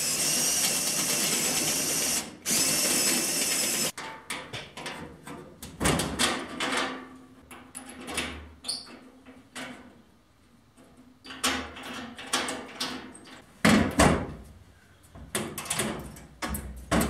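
A cordless drill runs for about four seconds in two bursts. Then come irregular metal clicks and rattles as a lock and knob are fitted and turned on a steel cabinet door, and later the cabinet's sheet-steel doors are shut with sharp metallic thuds.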